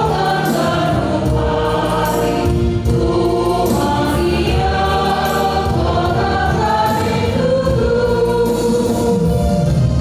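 A church congregation singing a hymn together, many voices holding long notes over a steady instrumental accompaniment.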